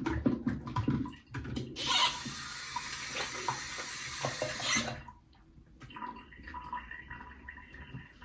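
Tap running into a sink for about three seconds, starting about two seconds in and shut off abruptly. Before it come a few clicks and handling sounds.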